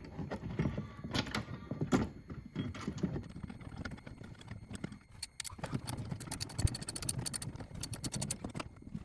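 Small metal hardware clinking and rattling, washers and bolts being handled and fitted, with a quick run of sharp clicks in the second half.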